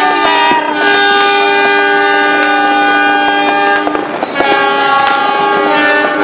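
Diesel locomotive horns sounding together in a long, loud, sustained chord, the S35 horn signal blown by several locomotives at once. The chord breaks off briefly about four seconds in and starts again, with sharp firework bangs popping over it.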